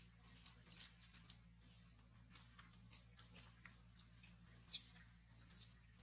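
Faint, scattered crackles and ticks of dry leaf litter under a macaque mother and her clinging infant as they move, with one sharper snap a little after the middle.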